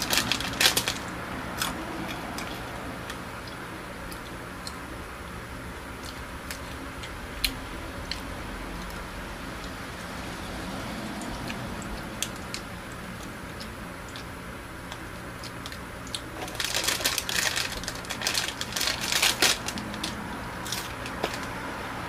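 Plastic snack bag of caramel popcorn being opened and handled: crinkling at first, scattered small rustles and clicks, then a denser run of crinkling near the end.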